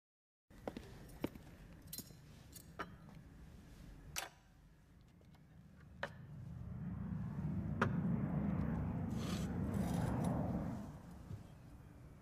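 Wine poured from a bottle into a glass for about four seconds, starting around the middle. Before it, scattered light clicks and taps of glass on a counter.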